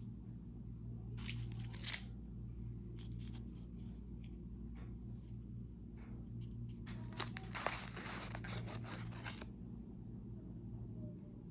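Paper cupcake liner crinkling as it is handled and peeled off a small shortbread cookie: a short crinkle about a second in, then a longer one of about two seconds past the middle. A steady low hum runs underneath.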